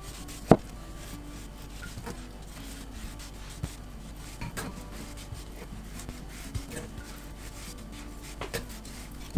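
Spatula spreading soft cinnamon-sugar butter across a sheet of puff pastry: soft rubbing and scraping strokes, with scattered small clicks and one sharp click about half a second in.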